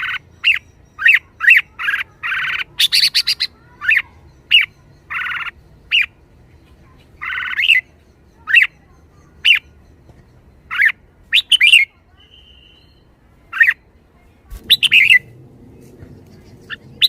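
Red-whiskered bulbul calling excitedly with quick, sharp chirps, about two a second at first, broken by a few longer harsh calls. The calls become sparser in the second half.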